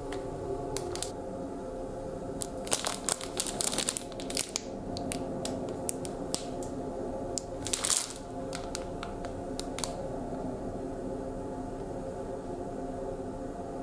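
Clear plastic wrapping crinkling and crackling as a packet of small toiletry bottles is handled, with a cluster of sharp crackles about three seconds in and a longer rustle around eight seconds in.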